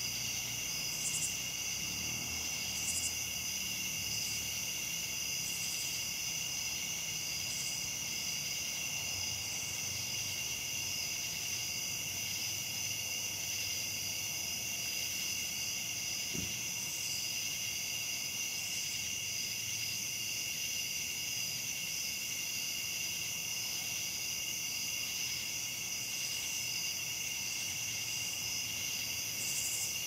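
Night chorus of crickets and katydids (cha chas), a steady high trilling made of several insect songs at different pitches. Short, higher calls repeat about every two seconds through the first ten seconds and again near the end.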